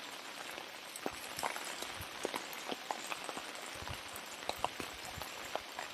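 Steady rain falling, an even hiss with scattered, irregular sharp taps of drops hitting hard surfaces.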